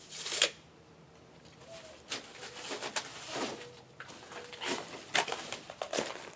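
Irregular light knocks, clicks and scrapes of hands-on carpentry work on wooden porch decking. The loudest knock comes about half a second in.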